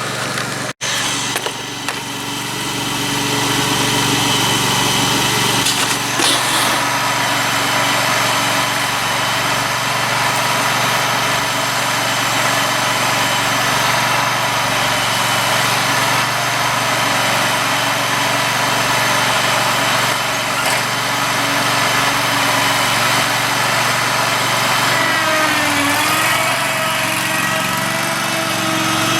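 Dixon 72-inch mower's engine running under mowing, with its freshly repaired deck pulleys turning; a steady engine note that builds over the first few seconds and wavers briefly near the end.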